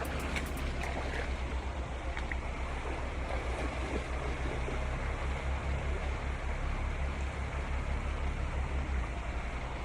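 Wind buffeting the microphone outdoors: a steady, flickering low rumble under an even hiss.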